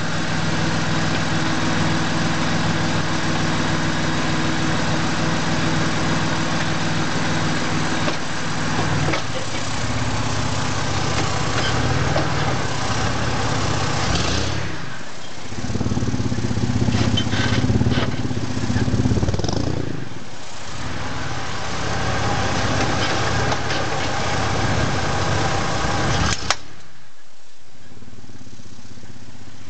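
A 2001 Ford F-150 pickup's engine idling steadily, then revving and pulling in uneven surges as the truck works under load with some axle wrap. Near the end there is one sharp snap, after which the engine sound falls to a quieter steady hum.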